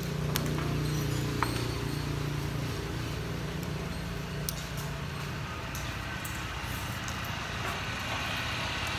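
A steady low motor hum that fades out a little over halfway through, with a few light clinks of eating utensils against a dish.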